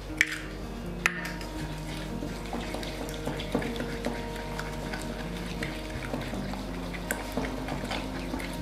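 An egg knocked twice against the rim of a glass mixing bowl in the first second, then a spatula stirring it into butter and sugar, with light clicking and scraping against the glass.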